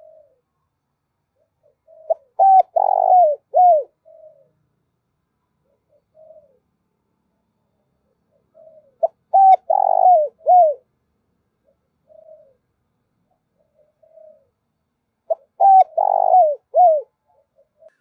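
Spotted dove cooing: three phrases of several coos each, about seven seconds apart, with soft single coos between them.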